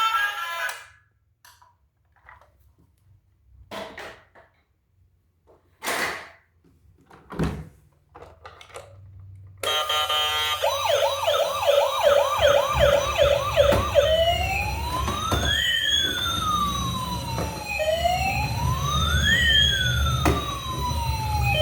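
A few knocks and clicks of handling, then about ten seconds in a battery-powered toy emergency vehicle's electronic siren switches on. It gives a fast yelp of about three to four pitch sweeps a second, then changes to a slow wail that rises and falls every few seconds.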